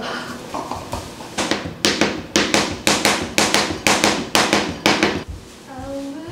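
Chef's knife chopping on a cutting board: about a dozen quick, evenly spaced strokes, roughly three a second, that stop about five seconds in.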